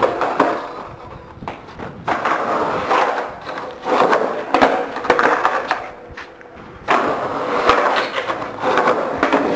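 Skateboard rolling and scraping, with short knocks of the board. The noise swells sharply about two seconds in and again about seven seconds in.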